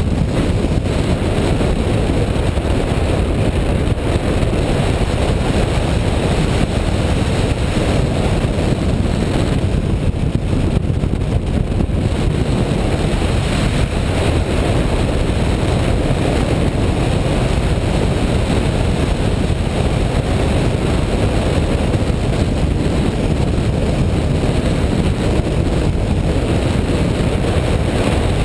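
Loud, steady rush of airflow buffeting the microphone of a camera mounted on a hang glider in flight, heard mostly as a low rumble.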